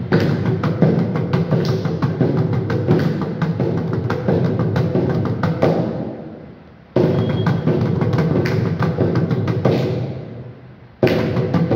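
Two mridangams played together: fast runs of strokes on the drumheads, with pitched ringing tones. Twice the drumming dies away for a moment, about six and ten seconds in, then starts again at once with a sharp stroke.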